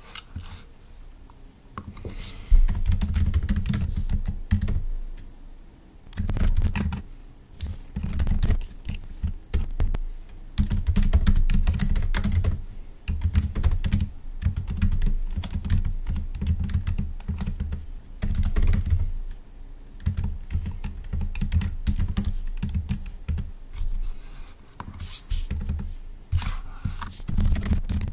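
Typing on a computer keyboard in runs of rapid keystrokes, broken by short pauses.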